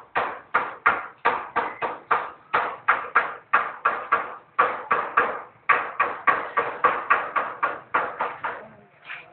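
Hammer blows in a quick, even run, about three a second, with a couple of short pauses and a last single blow near the end.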